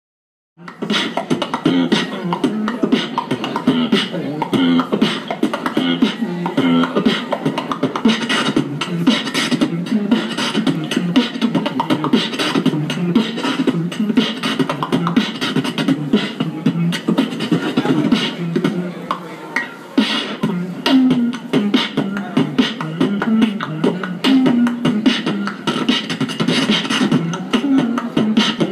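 Beatboxing into a handheld microphone through a portable amplifier: a fast, dense rhythm of drum-like clicks and hisses with pitched vocal lines, starting about half a second in.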